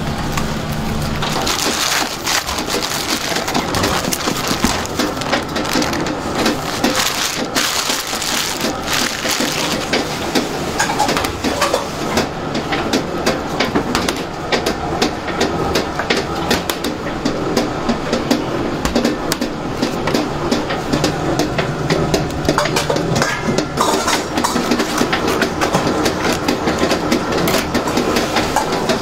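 Bakery kitchen work noise: a continuous, dense clatter of clicks and knocks while crusty baguettes are handled on a steel tray and a block of butter is cut with a knife on a steel worktop.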